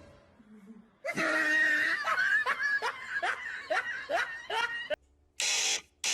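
Laughter: a run of short laughs, each falling in pitch, about two a second, followed by two breathy hissing bursts near the end.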